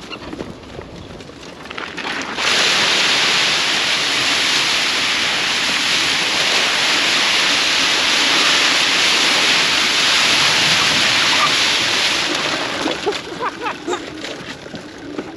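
A steady rush of splashing water that starts suddenly about two seconds in, holds for about ten seconds, then fades out near the end.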